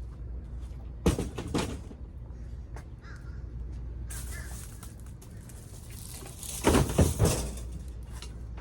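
Crows cawing: two harsh caws about a second in and a run of three more about two-thirds of the way through, with a rustling hiss between them.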